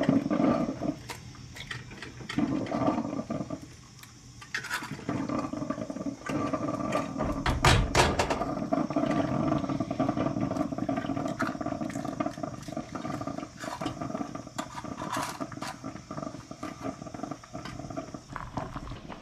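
Food frying in a pan on a gas stove, with repeated scrapes and clicks of a utensil against the pan over a steady hum.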